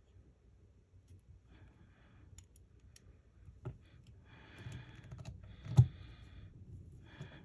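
Small clicks, taps and short scratchy rustles of hands and small tools working on an opened iPhone 12 Pro while a new battery is fitted, with one sharp, loud click nearly six seconds in.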